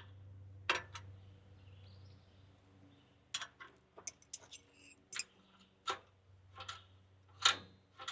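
Sharp metallic clicks and taps at irregular intervals, about a dozen in all, from a wrench working a nut on a sawmill handle's cable mount. A faint low hum sits under the first few seconds.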